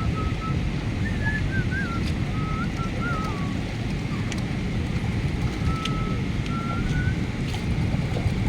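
Steady low rumble of a boat ride on water, with a thin wavering whistle-like tone that comes and goes in short phrases.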